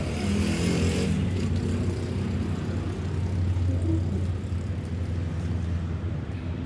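A vehicle engine running steadily at a low, even hum, with a brief rush of noise in the first second.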